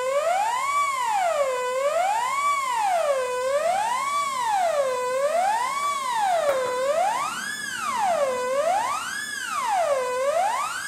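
littleBits Korg synth oscillator's buzzy tone swept up and down by an Arduino LFO, about once every 1.7 seconds. The pitch levels off at a set floor at the bottom of each swing, so the sound never drops out, and the peaks climb higher in the second half as the upper limit is raised.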